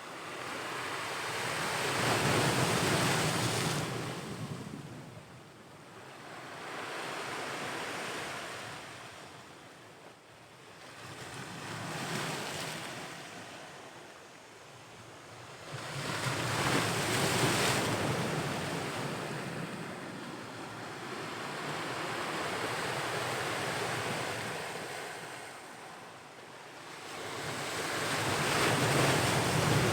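Ocean waves breaking and washing on the shore, swelling and fading in slow surges every few seconds, with some wind buffeting the microphone.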